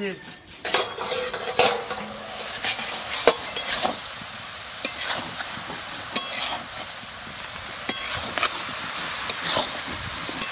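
Shredded cabbage and potato sizzling in a hot kadai, stirred with a flat spatula that scrapes and knocks against the pan again and again.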